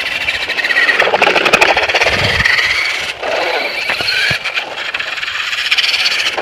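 Remote-control truck's electric motor and gears whining, the pitch rising and falling several times as it speeds up and slows, with a few short clicks.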